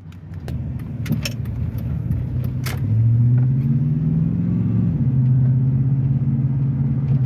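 Chevrolet pickup truck's engine heard from inside the cab, pulling louder about three seconds in, its pitch rising a little and then holding steady as the truck accelerates. A few light clicks and knocks come in the first few seconds.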